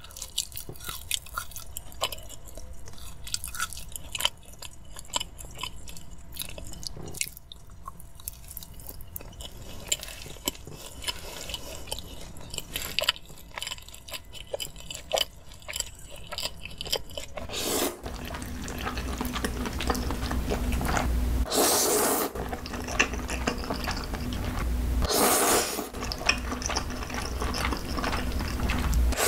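Close-miked chewing and biting of French fries and baked cheese bread, many small moist clicks. About two-thirds in it switches to louder eating of cream pasta noodles, with two long loud slurps.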